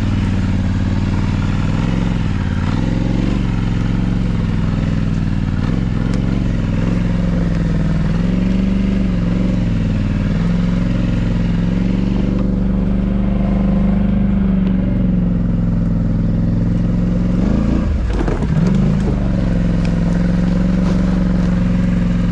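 Four-wheeler (ATV) engine running steadily while being ridden, its note wavering with the throttle, with a brief drop and rise in pitch near the end.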